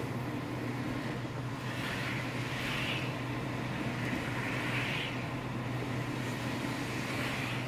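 Engine and road noise of a moving car heard from inside the cabin: a steady low drone under a broad hiss that swells and fades a few times.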